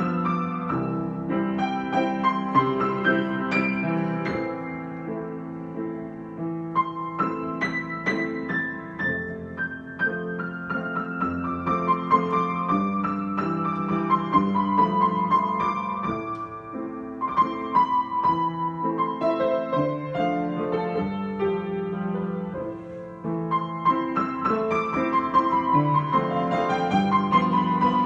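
Solo piano improvisation: a melody line of struck notes over chords in the lower register, played continuously at a moderate pace.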